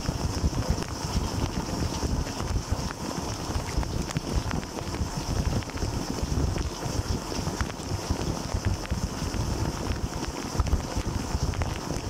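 Dishwasher wash cycle heard from inside the tub: jets of water from the spray arm splashing over the racks and dishes and against the camera. A steady, churning rush with a heavy low rumble and scattered small ticks.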